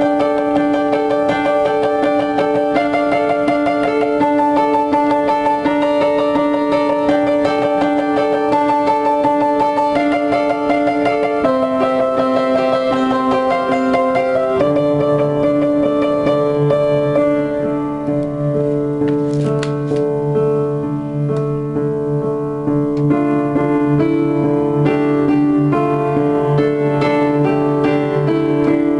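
Upright piano played as a fast, steady stream of repeated notes over held chords. The bass moves lower about halfway through, and the playing eases slightly for a few seconds after that.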